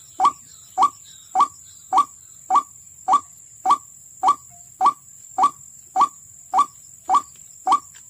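White-breasted waterhen lure call played on a loop through a small speaker: a short rising note repeated at an even pace of nearly two a second, to draw waterhens to the trap. A steady high whine runs underneath.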